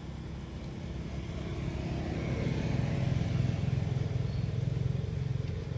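A motor vehicle's engine running with a low steady hum, growing louder over the first three seconds and easing off a little after.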